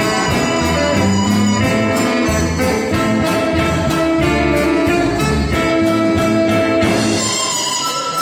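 A band playing an instrumental passage with no singing: sustained melody notes over a bass line and a steady beat.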